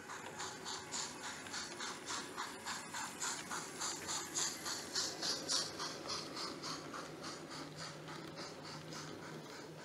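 Trix model of a Bavarian class B VI steam locomotive running past with its coaches: a quick rhythmic beat, about five a second, over a steady running rumble. It is loudest about four to five seconds in, as the engine passes closest, then fades.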